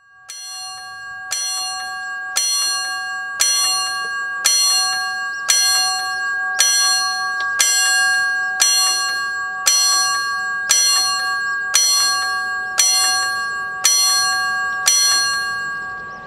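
A bell struck about once a second, fifteen times in a row, each stroke ringing on into the next; it grows louder over the first few strokes, then holds steady and stops.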